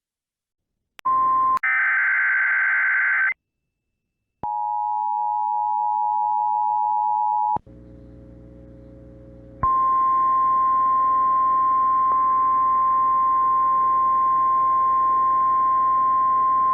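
Emergency alert signals over weather radio: a brief steady tone and a short burst of SAME data screech, then after a pause about three seconds of the two-note EAS attention signal. After a couple of seconds of quieter static with a low hum, NOAA Weather Radio's single-pitch warning alarm tone sounds steadily over light radio hiss through the end, announcing a new warning.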